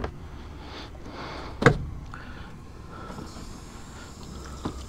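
A single sharp knock a little under two seconds in, with fainter clicks before and after, over a low steady rumble.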